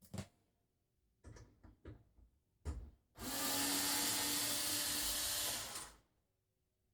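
A few short clicks and a sharp knock from handling hardware, then a power drill running steadily for about three seconds and stopping, as when driving a screw into a door's handle or latch fitting.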